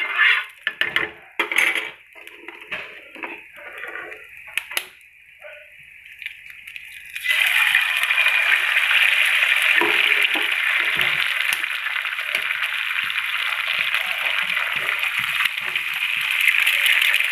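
A spoon clinks and scrapes in a frying pan with a little oil, with a few sharp taps. About seven seconds in, eggs drop into the hot oil and a loud, steady sizzle starts suddenly and keeps going.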